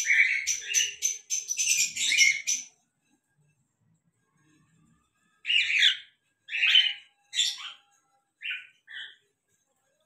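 Male cockatiel chirping: a quick run of short, high-pitched calls for about three seconds, a pause, then five shorter chirps spaced about half a second to a second apart.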